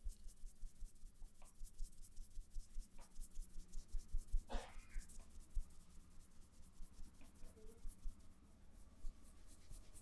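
Hands massaging a head, rubbing and patting the scalp in a quick, even rhythm of about five strokes a second, with a brief louder swish about halfway through.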